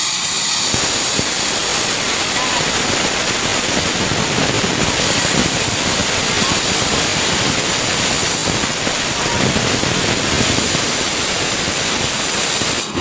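Oxy-acetylene cutting torch flame burning with oxygen mixed in, a loud steady hiss from the blue flame at the nozzle, which stops suddenly near the end.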